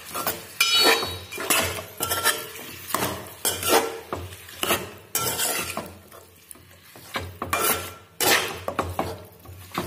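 Metal spatula scraping and clinking against a steel pot as chicken pieces are stirred with onions and spices, in irregular strokes with a quieter pause about two-thirds of the way through.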